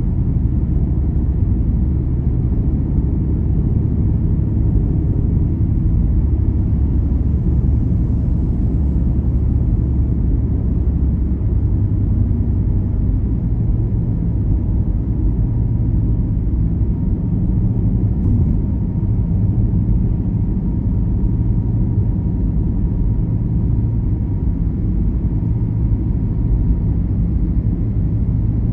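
Car driving along a motorway, heard from inside the cabin: a steady low rumble of tyre, road and engine noise.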